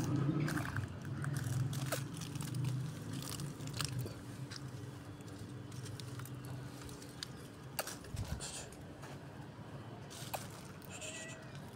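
Tabby cat eating cat food, with scattered crisp crunches and clicks as it chews. Under it runs a low steady hum that is loudest in the first few seconds and then fades.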